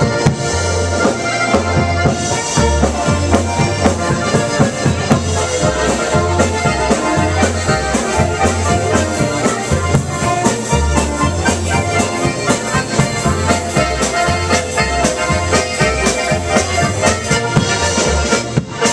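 Live Slovenian-style polka band playing: several diatonic button accordions and a piano accordion over a steady bass line and drum beat. The tune ends just before the close.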